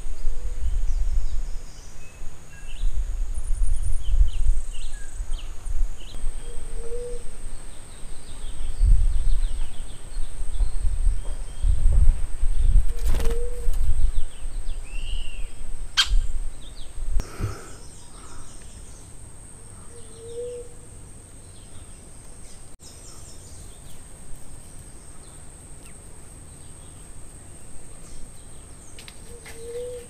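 Birds calling outdoors: scattered short chirps and a low hooting note repeated about every six or seven seconds, over a steady high insect whine. A low rumble of wind on the microphone fills the first half and then dies away, with a few sharp clicks in the middle.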